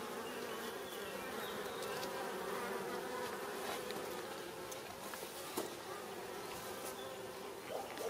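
Honeybees buzzing around their hive, a steady hum of many wings that wavers slightly in pitch, with a few faint ticks.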